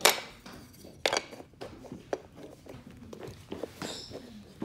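A few sharp knocks and clicks, roughly a second apart, the first the loudest.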